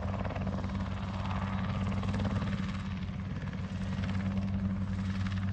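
Heli-Sport CH-7 Kompress ultralight helicopter flying low, its modified Rotax 914 engine and rotor making a steady drone.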